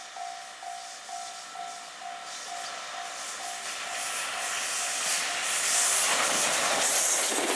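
Level-crossing warning bell ringing in even pulses about two and a half times a second, then drowned out as an approaching freight train grows steadily louder from about four seconds in. Near the end, the EF81 electric locomotive hauling the container train passes with a loud rushing hiss.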